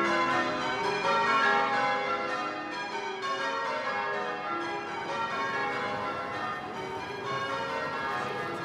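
Church bells of St John the Baptist, Grainger Street, rung in changes by a band of bell ringers: a steady, overlapping sequence of struck peals.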